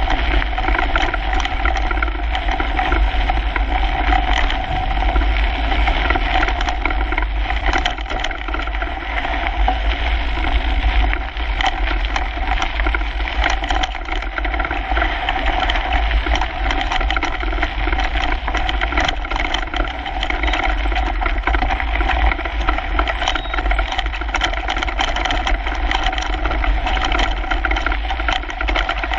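A Kona Coiler mountain bike riding fast over a gravel trail, heard through a handlebar-mounted GoPro: a steady rush of tyre and wind noise with a low rumble and constant rattling and knocking from the bike over the rough surface.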